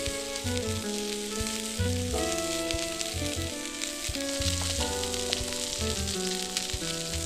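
Food frying in a cast-iron skillet, a steady sizzling hiss, heard under background music with a melody and bass line.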